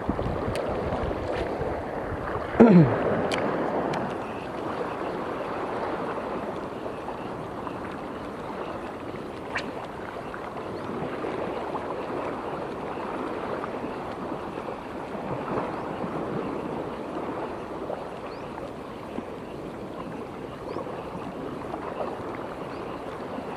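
Shallow estuary water washing and lapping steadily around a wading angler. About two and a half seconds in, a single short, loud cry falls in pitch.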